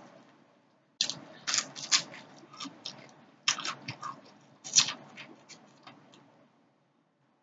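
Close-miked chewing of fried tilapia with the skin on: clusters of sharp crackling clicks and wet mouth sounds, stopping about six and a half seconds in.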